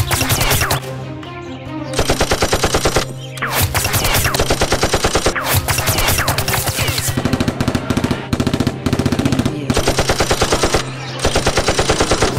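Rapid automatic gunfire sound effects, about ten shots a second, in long bursts broken by short pauses, over background music.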